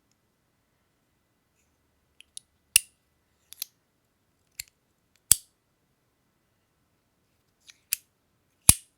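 Compoform OG V1.1 fidget being snapped: a series of sharp, separate clicking snaps starting about two seconds in, several of them preceded by a fainter click.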